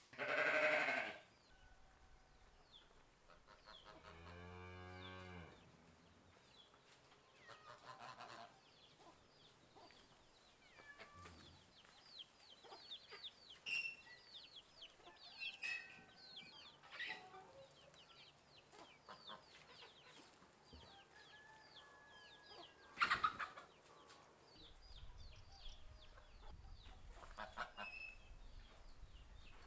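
Farmyard chickens clucking and chirping, with a cow mooing once about four seconds in. A brief loud noise opens it, and there is a sharp loud sound a little before the end.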